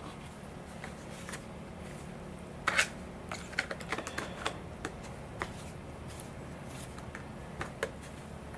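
Light clicks and taps of a thin clear plastic servo cover being handled and pressed down by fingers over a wing servo bay, clustered about three to five seconds in, with a couple more near the end.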